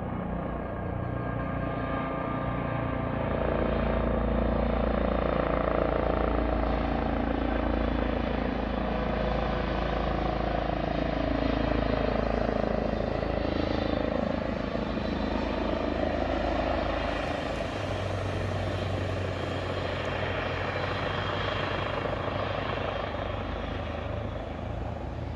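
Helicopter flying over: a continuous rotor and engine drone that grows louder over the first few seconds, its pitch slowly falling as it passes, then eases off a little in the second half.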